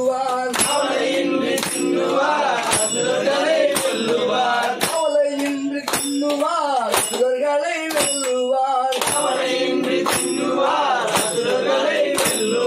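Devotional song: a man singing over a struck percussion beat that falls about three times every two seconds, each strike leaving a high ringing tone.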